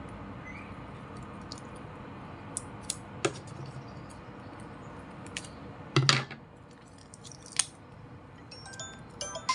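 A jar being handled: a few light clicks and knocks, the loudest a knock about six seconds in, over a steady room hiss.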